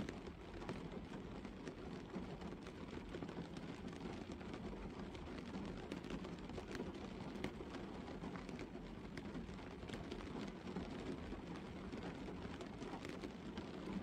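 Gentle rain falling steadily on a car's roof, windscreen and bonnet, heard from inside the cabin as a low, even patter with many separate drop taps.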